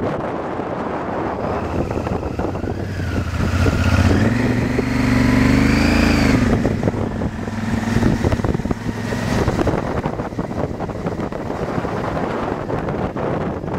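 Motorcycle riding along a road with wind rushing over the microphone. About three seconds in an engine note comes up and rises in pitch, then falls away and fades by about ten seconds.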